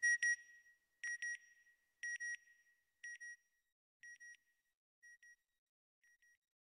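Electronic sound-effect beeps in pairs, about one pair a second, high-pitched with an echo-like tail, fading steadily until barely audible.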